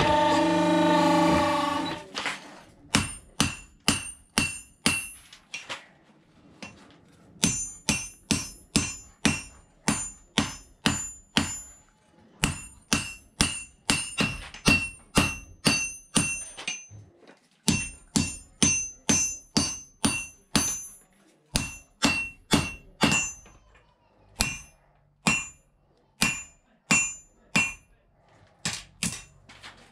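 Hand hammer forging red-hot steel from an old bearing on an anvil: sharp, ringing strikes about two a second, in runs of five to fourteen blows with short pauses between runs.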